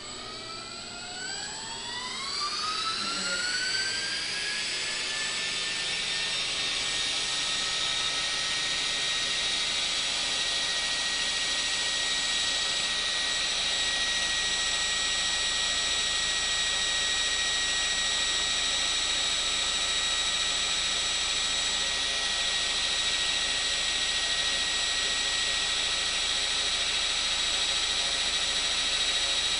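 Blade 450 3D electric RC helicopter spooling up on the ground. The brushless motor and drive-gear whine rises in pitch over the first six seconds or so, then holds steady, with the main rotor blades whooshing at speed.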